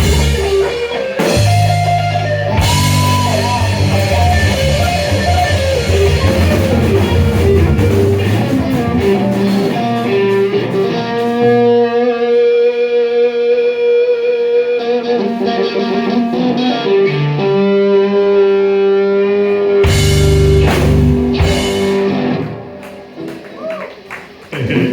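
Live blues band playing the end of a slow blues: a Stratocaster electric guitar takes the lead over bass and drums, then holds long sustained notes over sparse backing. About 20 seconds in the band hits a final chord together, which rings and dies away near the end.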